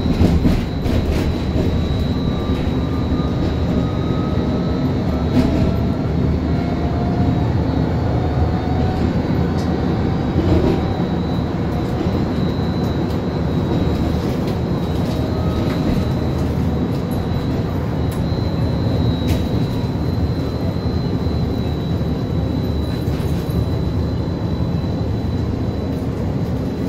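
Inside a First Hill Streetcar tram running along its track: a steady rumble of wheels and drive, with a thin constant high whine. Fainter motor whines rise slowly in pitch over the first ten seconds or so, and there are a couple of brief knocks.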